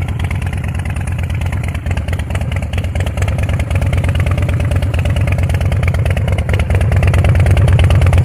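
Custom chopper's Rev-Tech V-twin engine idling with a steady, even lope, growing louder about halfway through and again near the end.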